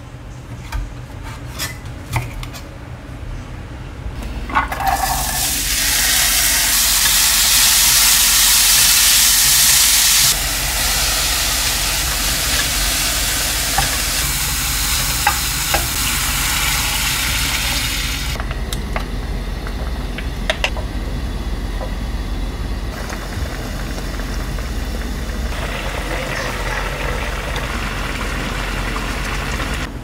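A knife tapping through squid on a wooden cutting board, then diced vegetables sizzling loudly in oil in a stainless-steel pan. The sizzle softens to a quieter hiss after water is poured into the pan, more than halfway through, with a few clinks of stirring.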